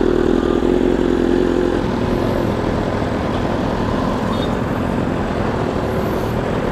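Loud sports vehicle engine running at idle with a strong steady hum for the first two seconds or so, then a rougher, more mixed engine and traffic noise.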